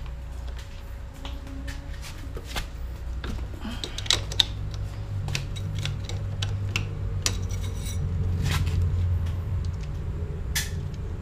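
Irregular metallic clinks and taps of a hand spanner against bolts on a Yamaha LC135 motorcycle engine, over a steady low rumble.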